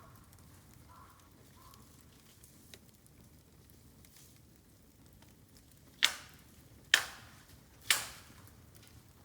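Bamboo in a bonfire bursting with three sharp, loud cracks about a second apart, as heated air and steam split the sealed stalk sections, over a low crackle of the fire.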